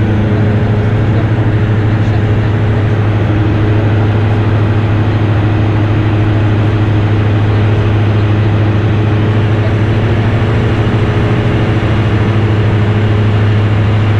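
Steady cabin drone of a Diamond DA62's Austro diesel engines and propellers in flight, heard inside the cockpit: a strong low hum with a few higher steady tones over even rushing noise, unchanging throughout.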